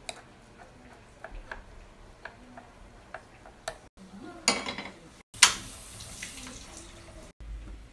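A metal fork tapping and scraping on a ceramic plate while mashing soft food, a run of light clicks. About five seconds in, a gas stove burner lights with a sharp click and whoosh, then a steady hiss of the gas flame.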